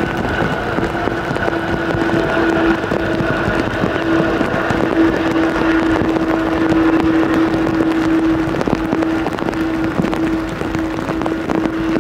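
Boeing 777-300 airliner's jet engines running with a steady hum as the plane rolls out on a wet runway after landing, over a continuous noisy rush. A fainter higher whine fades out about halfway through.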